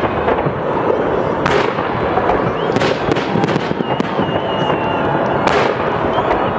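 Fireworks display: steady crackling and popping of bursting shells, with three sharper, louder bangs spread through.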